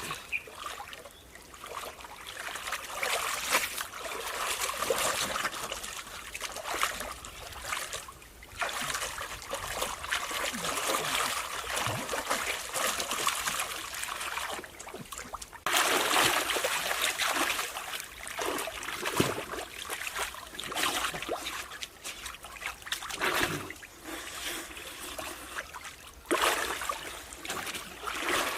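Water trickling and splashing, with the sound changing abruptly a few times.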